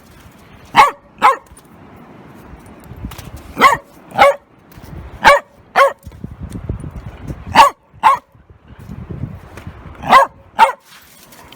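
A dog barking in pairs of short barks, a double bark every two to three seconds, ten barks in all.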